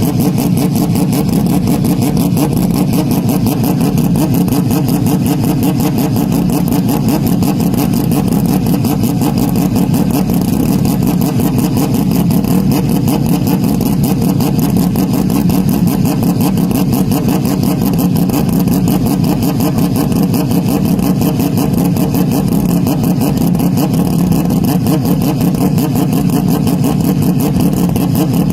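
Motocross motorcycle engine running steadily, loud and close, with no clear revs up or down.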